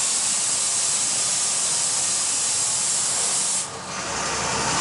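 Steady loud hiss inside a moving bus, strongest in the highs. It drops abruptly about three and a half seconds in, then builds back up with a low rumble underneath.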